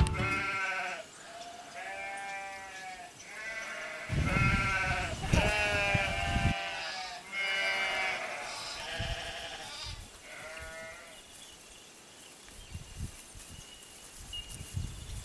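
Sheep bleating, about seven wavering calls a second or two apart, with a low rumble under the calls in the middle.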